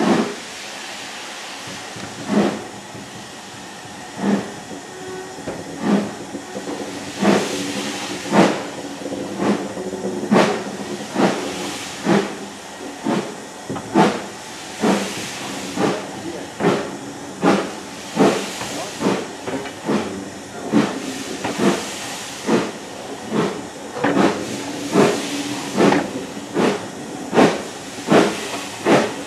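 Ivatt Class 2MT 4-6-0 steam locomotive 46447 pulling away with its train, heard from a coach window behind. Its exhaust beats start about two seconds apart and quicken steadily to a little more than one a second as the train gathers speed, over a steady steam hiss.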